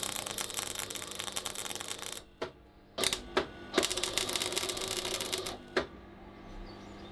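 MIG welder arc crackling as steel grate bars are welded. There are two welds of about two seconds each, with a few short blips between them, and then the arc stops.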